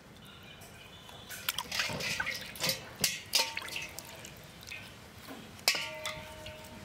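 Water splashing and dripping as a raw cow eyeball is rinsed and worked by hand in a metal basin of water, busiest in the middle. A few sharp clicks of the knife against the metal basin ring briefly, the loudest near the end.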